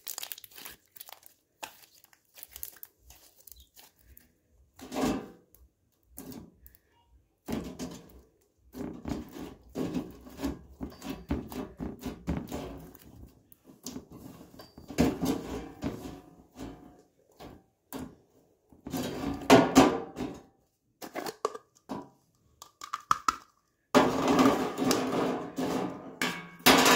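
Homemade slime squeezed, folded and stretched by hand: irregular sticky squelches, clicks and pops, in louder clusters. Near the end a clear plastic tub is handled.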